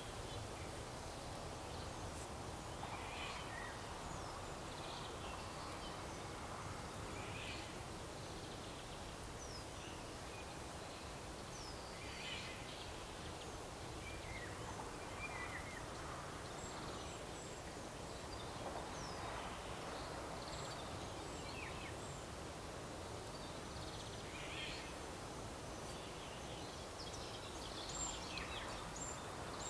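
Steady outdoor background noise with scattered short, high chirps and calls of small birds throughout.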